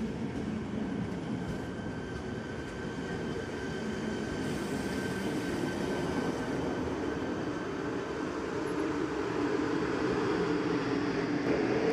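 Electric passenger train running through the station on the main line: a steady rumble of wheels on rail with faint whining tones, growing louder over the last few seconds.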